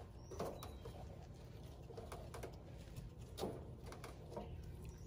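Faint rustling and a few light, brief taps from a rabbit's fur-lined nest being handled.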